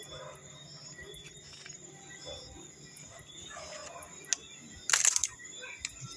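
A night chorus of chirping insects: a steady high hum with short high chirps about once a second. A brief loud rustle about five seconds in.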